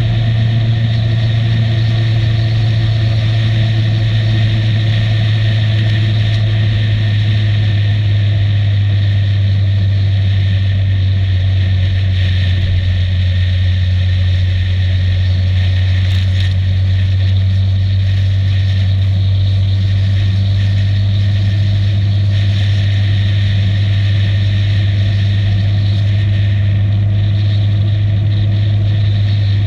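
Motorcycle engine running steadily at cruising speed, a constant low drone with no gear changes or revving.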